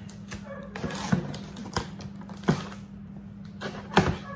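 A cardboard shipping box being handled and its flaps pulled open, with a few sharp knocks and scrapes of cardboard, the loudest about four seconds in. A steady low hum runs underneath.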